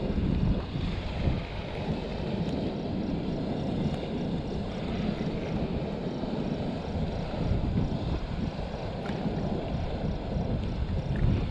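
Wind buffeting the microphone in low, uneven gusts, over a steady rush of water pouring from a weir outlet.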